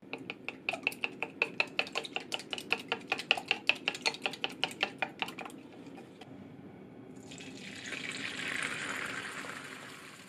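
Eggs being beaten briskly in a measuring jug: a quick run of clicks at about five strokes a second that stops after about five seconds. Then beaten egg is poured into a hot square tamagoyaki pan and sizzles, the hiss swelling and fading near the end.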